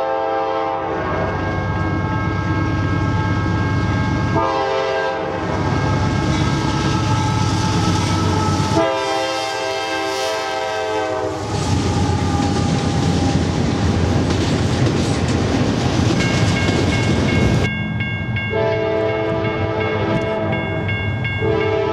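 Diesel freight locomotives' multi-tone air horns sounding in several blasts, one long blast a little after the middle and another near the end, over the rumble of the engines and the rattle and clatter of freight cars passing on the rails.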